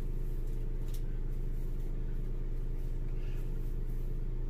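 A steady low hum from a fan or appliance, with a faint swish of a wide-tooth comb drawn through coiled hair about a second in.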